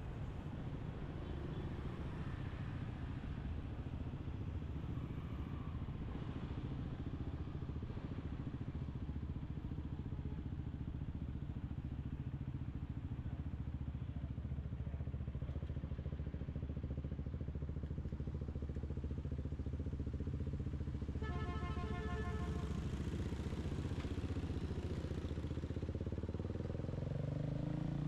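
City street traffic heard while riding a bicycle: a steady low rumble of motorbikes and cars. About three-quarters of the way through comes a brief pulsing tone, and near the end an engine rises in pitch as a motorbike passes.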